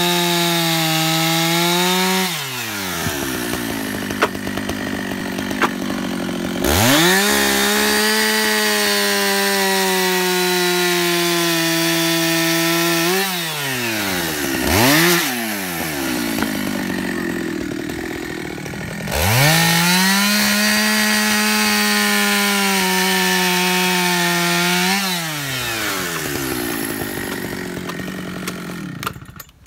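Two-stroke chainsaw cutting through blocks of mulberry wood, running at full throttle in three long stretches and dropping back toward idle between them, with a short rev about fifteen seconds in. The engine stops just before the end.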